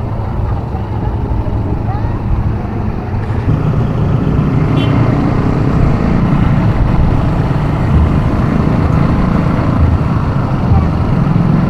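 ATV engine running, getting louder about three and a half seconds in.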